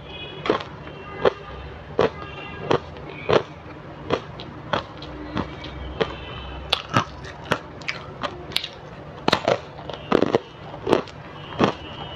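Frozen matcha ice being bitten and chewed close to a lapel microphone: a steady run of sharp, crisp crunches, about one every 0.7 seconds, coming a little faster in the second half.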